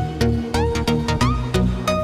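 Electronic background music with a steady, fast beat of about three beats a second and sliding synth notes.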